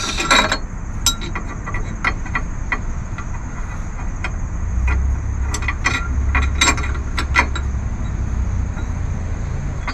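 Steel bolts clinking and tapping against a metal spring bracket as they are fitted by hand: irregular metallic clicks, several at a time, throughout.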